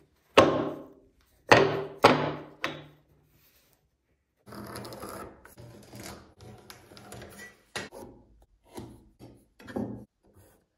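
A wooden block knocks sharply against a wooden workbench about four times in the first few seconds, each knock ringing briefly. Then comes an uneven scratching and rubbing as a pencil is drawn along a steel rule across the wood to mark cut lines, with a few small clicks.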